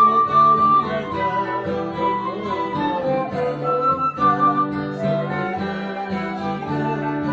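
Instrumental music: a melody of held notes over a plucked acoustic guitar accompaniment.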